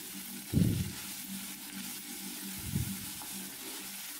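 Chopped onions, tomatoes and curry leaves sizzling in oil in a clay pot while being stirred with a wooden spatula, with two soft thumps, about half a second in and near three seconds.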